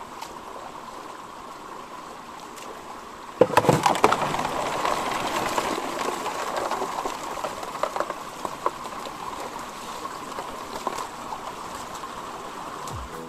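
Creek water rushing through an aluminium sluice box and splashing off its end into the stream. It comes in suddenly about three and a half seconds in, over a faint steady stream sound, then slowly eases off.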